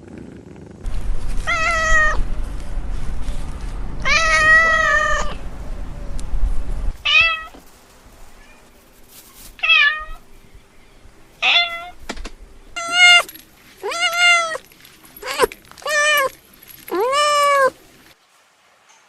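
A domestic cat meowing again and again, about ten meows: two longer drawn-out ones early on, then a run of short clipped ones, the last one longer. A low rumble runs under the first two meows.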